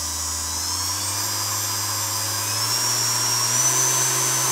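Brushed motor of a TM variable-speed mini bench polisher whining as its speed knob is turned up. The pitch rises steadily and levels off near the end as it reaches full speed.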